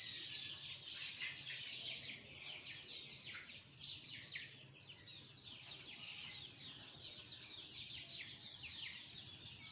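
A flock of chickens calling in the coop: many short, high, falling peeps and clucks overlapping continuously.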